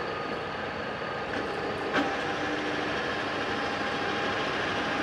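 TOS FA5V vertical milling machine running its table in rapid cross traverse, a steady mechanical running noise with faint steady tones. A single click comes about two seconds in.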